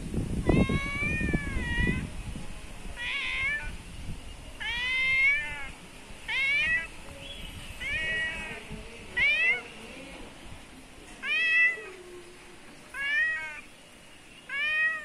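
A white-and-tabby cat meowing over and over, about nine separate meows spaced a second or two apart, most rising and then falling in pitch. A low rumble sits under the first meow.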